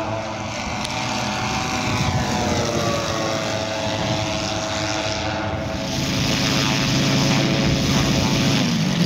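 Four-engine giant-scale radio-controlled Avro Lancaster model making a low pass, its engines droning with the pitch falling as it goes by. From about six seconds in, a steadier, lower model engine note follows.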